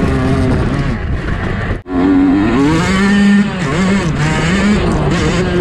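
Yamaha YZ125 single-cylinder two-stroke dirt bike engine under way, its pitch rising and falling again and again as the throttle is worked. The sound cuts out for an instant a little under two seconds in, then the revs climb and hold briefly before dropping back.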